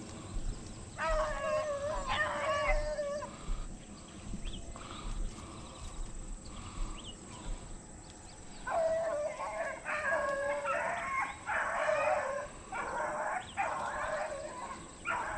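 Beagles baying on a rabbit's scent: a long wavering bawl about a second in, then a run of repeated bawls, several voices overlapping, from about nine seconds on. The hounds are giving tongue as they run the trail.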